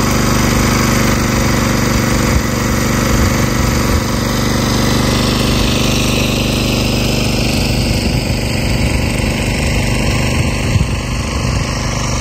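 Engine-driven irrigation water pump running steadily at full throttle, pumping well water into a rice paddy.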